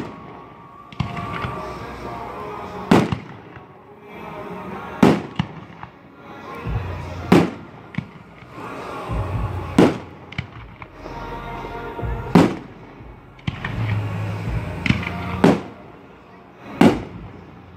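Aerial firework shells bursting: about seven loud bangs, two to three seconds apart, each trailing off in an echo.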